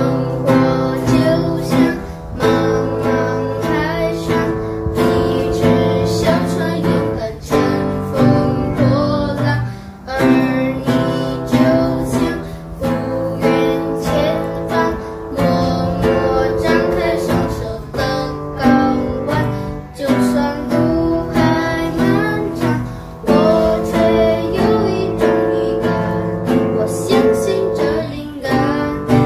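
A boy singing a Mandarin song while strumming chords on a nylon-string classical guitar, the strums keeping a steady rhythm under the melody.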